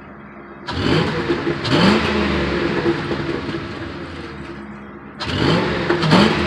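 2002 Ford Crown Victoria P71's 4.6-litre V8 idling, then revved twice, about a second in and again near the end, each rev climbing quickly and sinking slowly back toward idle. The revving is meant to blow loosened carbon and debris out through the exhaust after a throttle-body and intake cleaning.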